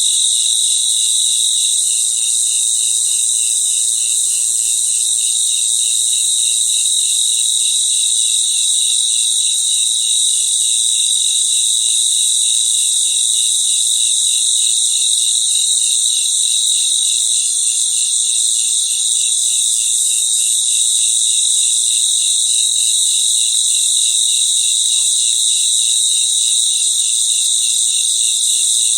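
Chorus of crickets singing continuously: a high, steady trill with an evenly repeating, rapid pulse running beneath it.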